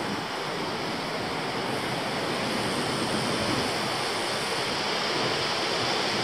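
Steady rushing wind noise on the microphone of a camera riding on a moving e-bike.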